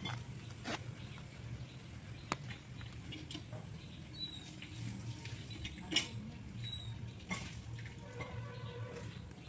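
A leather wallet being handled: faint rustling and scraping of leather and lining, with a few sharp clicks, the loudest about six seconds in, over a low steady hum.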